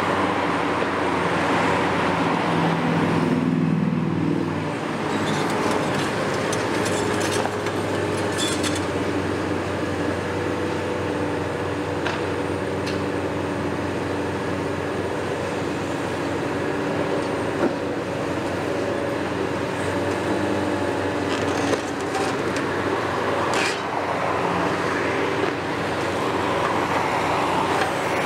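Heavy demolition excavator, a Hitachi 470, with its diesel engine running steadily and hydraulics working. The engine note swells briefly about three seconds in, and a few sharp clanks sound in the second half.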